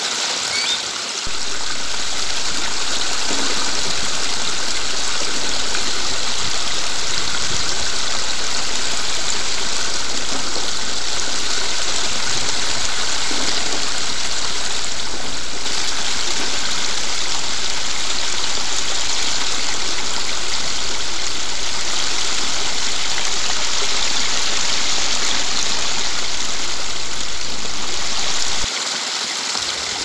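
Water of a small rocky stream cascading and splashing over stones: a steady, loud rushing. It gets louder about a second in and drops back near the end.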